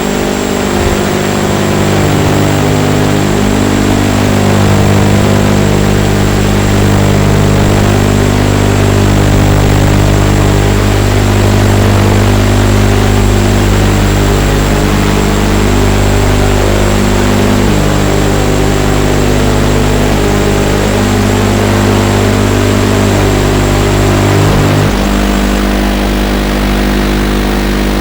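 Eachine Racer 250 quadcopter's four brushless motors and propellers in flight. The whine is steady and layered, rising and falling as the throttle changes, and drops in pitch about 25 seconds in.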